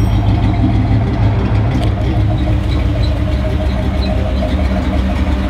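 Cammed 350 V8 of an OBS pickup idling steadily with a little rumble through its Flowmaster 40 Series muffler.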